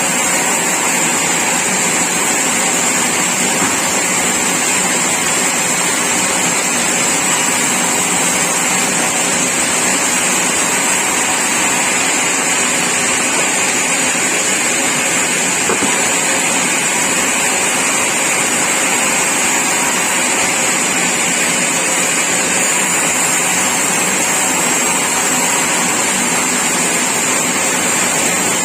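Sawmill machinery running steadily: a loud, even mechanical noise with a high hiss that does not change.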